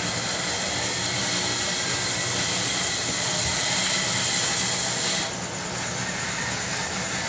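Machine-shop machinery running: a steady hiss with a thin high whine that cuts off suddenly about five seconds in, over a constant low hum.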